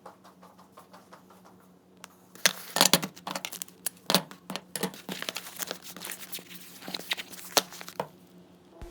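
Packing tape being pulled off the roll and pressed onto a small cardboard box: quiet light ticking at first, then from about two and a half seconds in a run of sharp rips and crinkles.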